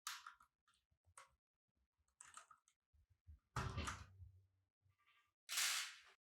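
Plastic clicks and scrapes from a mechanical keyboard as a keycap is pulled off, in about five short separate bursts, the loudest a knock about three and a half seconds in.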